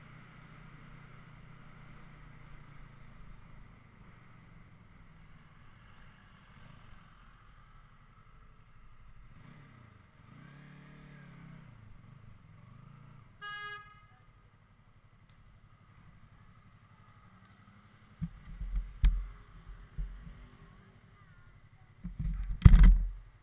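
Motorcycle engine running at low speed under the rider, with one short horn toot about halfway through. Two loud low rumbling surges come near the end, the last and loudest just before it ends.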